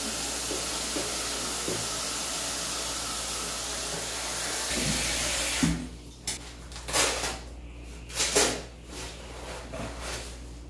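Tap water running steadily from a hose into a plastic basin, an even hiss that cuts off suddenly a little past halfway. After it, several short splashes and sloshes of water as the wet cat moves in and climbs out of the washing basin.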